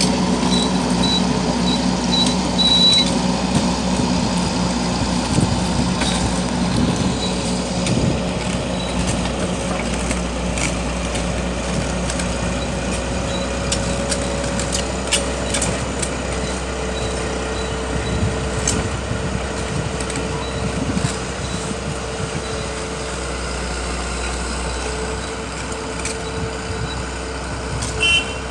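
Truck engine running steadily, with a high beeping about twice a second for the first few seconds and again briefly near the end.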